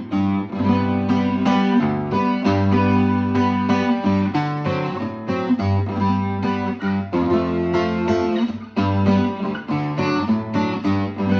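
Martín Macías bajo sexto, freshly strung with new Macías strings, being played: a quick run of picked and strummed chords over ringing bass notes.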